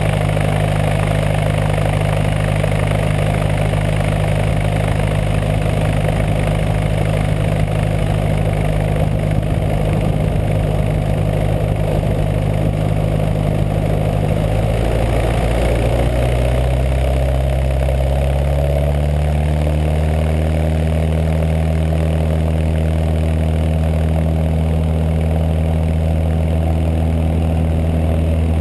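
Cessna 172's piston engine and propeller, heard from under the wing, running steadily at low taxi power. About halfway through the engine note shifts and climbs over a few seconds as power comes up for the takeoff roll, then holds steady.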